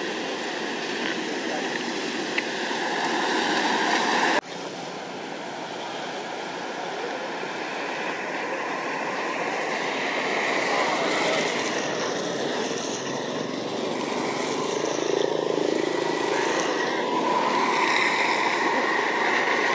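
Steady rushing background noise with no distinct calls or knocks. It drops abruptly about four and a half seconds in, then slowly builds again.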